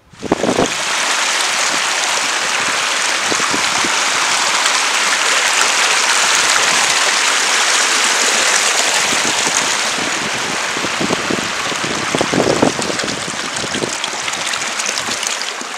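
Shallow moorland stream rushing loudly over rocks close by, a steady hiss of water that starts suddenly. A few footsteps land on the stepping stones as it is crossed.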